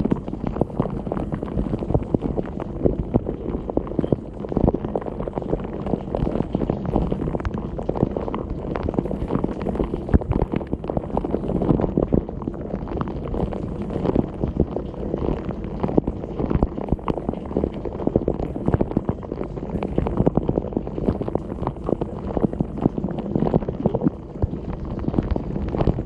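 Dishwasher spray jets pounding the dishes and the camera from inside the machine during a wash cycle. It is a steady, heavy, low splashing, thick with sharp spatters.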